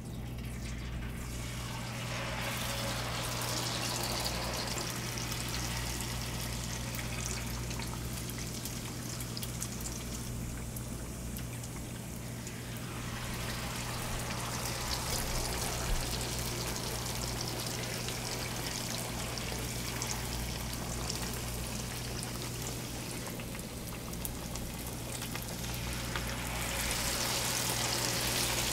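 Batter-coated pork slices sizzling and bubbling in a deep fryer's hot oil as they are lowered in, getting louder near the end. A steady low hum runs underneath.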